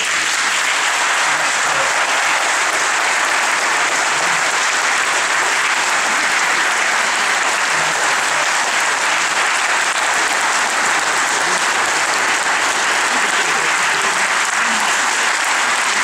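A large audience applauding, a dense, steady clapping that holds without letup.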